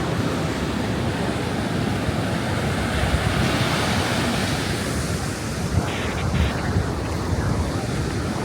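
Strong wind buffeting the microphone with a steady low rumble, over the hiss of surf breaking.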